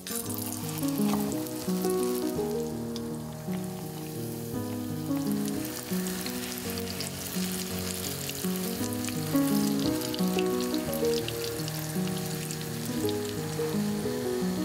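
Filled potato-dough pasties sizzling in hot vegetable oil in a frying pan, with many small pops. The sizzle starts as the first pasty is laid in and goes on steadily, over background music.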